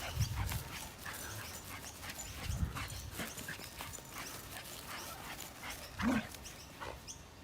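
Dog scuffling about with scattered light clicks and rustles, and one short pitched yip about six seconds in.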